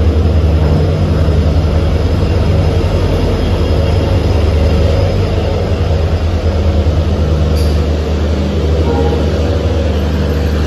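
WDP4 diesel-electric locomotive pulling slowly into the platform close by, its EMD two-stroke diesel engine running with a loud, steady low drone over the rumble of the train.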